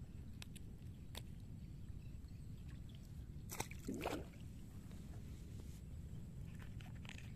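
A small snakehead fish released into shallow field water, hitting the surface with one splash about three and a half seconds in, over a steady low rumble.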